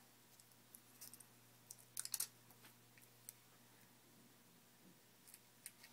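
Near silence with a few faint clicks and taps from hands handling a keychain camera while sticking a piece of Velcro onto it; the clearest cluster comes about two seconds in.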